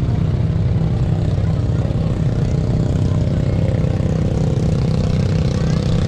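An engine running steadily with an unchanging low pitch.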